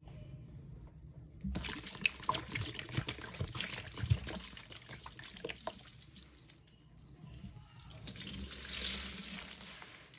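Cleaning liquid poured from a bottle onto kitchen sponges in a stainless steel bowl, splashing and dripping with many small ticks. In the last few seconds a steadier rush of liquid swells and fades.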